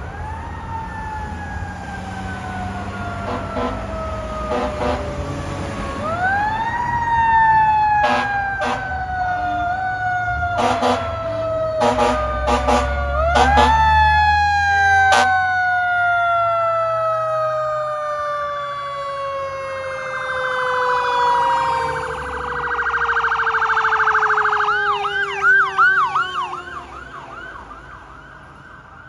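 Fire truck responding with its siren: a wail that rises quickly and falls slowly in three long sweeps, with several short air horn blasts in between. Near the end the siren switches to a fast yelp that fades as the truck passes.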